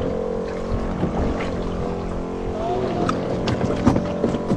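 A small engine running with a steady hum, with scattered knocks and clatter from gear on the boat.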